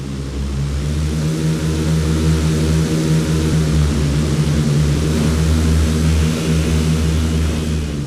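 A steady engine drone at a constant pitch with a rushing noise over it, swelling up over the first couple of seconds and cutting off suddenly near the end.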